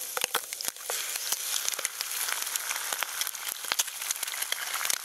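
Bacon strips and an egg sizzling in a frying pan: a steady hiss with many small pops and crackles.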